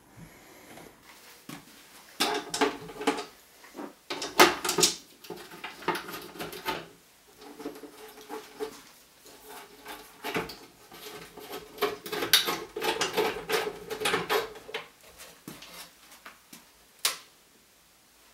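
Hands handling a benchtop band saw's plastic housing and fittings: irregular knocks, clicks and rattles while the upper wheel cover is worked open, with one sharp click near the end.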